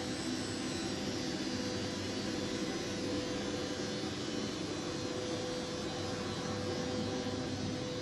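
Steady machine hum and whir, with a steady mid-pitched tone and a faint high whine above it.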